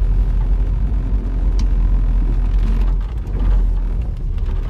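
A car being driven, heard from inside: a steady low rumble of engine and road noise.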